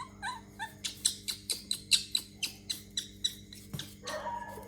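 A baby monkey gives a few short squeaky calls near the start, then a quick run of sharp smacking clicks follows at about three to four a second for about three seconds, over a steady low electrical hum.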